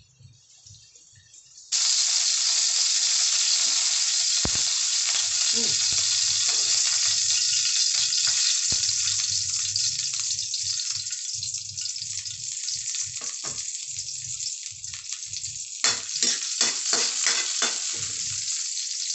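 Chopped garlic hits hot cooking oil in a metal wok about two seconds in and sizzles loudly and steadily. From about sixteen seconds in there are sharper crackles and pops as a spatula stirs it. The cook puts the spattering down to water in the oil.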